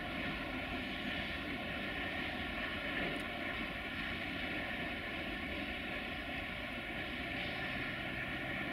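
Distant diesel engines of LDE2100 (060-DA) locomotives running under load, a steady drone with a high, even whine, as the freight train approaches unseen.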